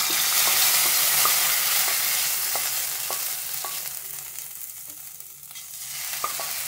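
Hot oil tempering (tadka) sizzling as it is poured from a kadai onto palak dal and scraped in with a wooden spatula. The hiss fades over the first few seconds and swells slightly again near the end, with a few sharp clicks through it.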